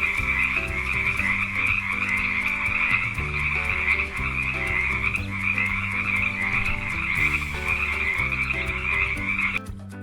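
Frog croaking in a continuous rapid trill that cuts off suddenly near the end.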